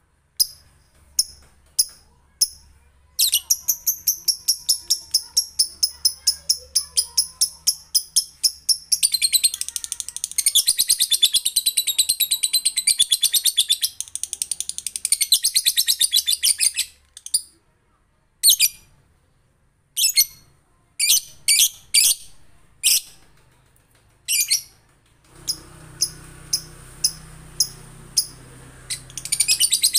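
Male lovebird chattering its long 'ngekek' song: a few single high chirps, then a fast run of repeated high notes starting about three seconds in that thickens into a dense chatter, breaks off about halfway, and gives way to scattered chirps before another dense run near the end.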